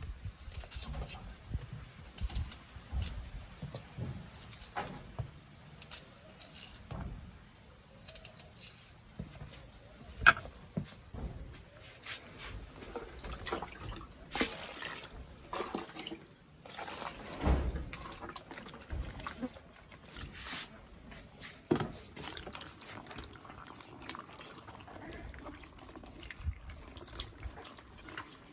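Irregular small knocks and splashes of ingredients being handled in a bowl of water.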